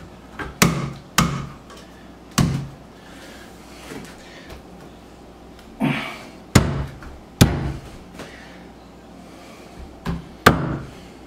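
Wooden knocks, about seven sharp thuds at uneven intervals, as a wooden bunk bed's top rail is knocked down by hand onto the dowels in the tops of its posts.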